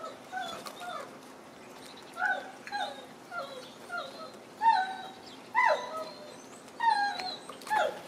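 A pet dog whining in about ten short whimpers that rise and fall in pitch, louder in the second half.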